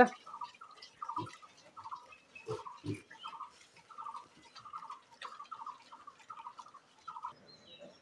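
Short animal calls repeating about twice a second, with a few brief low grunts among them from the pigs in the pen.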